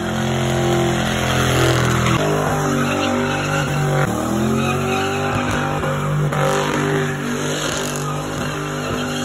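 Car engines held at high revs during burnouts, tyres spinning and squealing on concrete. The sound changes abruptly about two and four seconds in, and just after the second change the engine revs rise.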